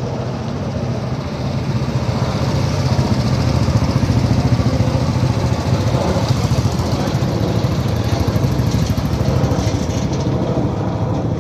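Engines of a group of motorcycles running together as they ride past in formation, a steady dense engine sound that grows louder about two seconds in.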